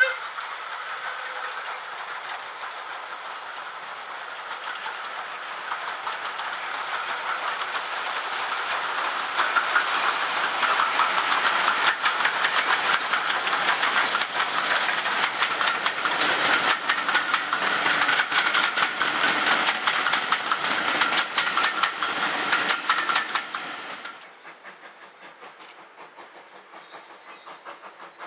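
Steam-hauled passenger train approaching and passing close by, growing louder as it nears. The coaches' wheels click rapidly over the rail joints, with hiss and a steady high tone over the top. The sound cuts off abruptly about 24 seconds in, and only a faint distant background is left.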